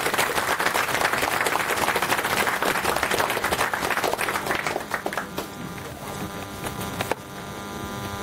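Audience applauding, thinning out and dying away after about five seconds.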